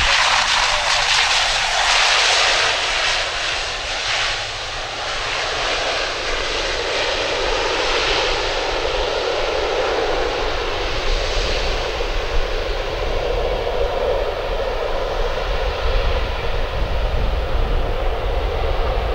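ATR 72-500 turboprop's engines and propellers running during its landing roll-out: a loud hissing roar that thins over the first several seconds as the aircraft rolls away, leaving a steadier, lower drone.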